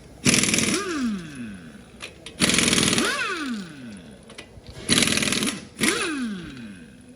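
Pneumatic impact wrench run in four short bursts, each ending in a falling whine as the tool spins down after the trigger is released, while wheel nuts are being taken off.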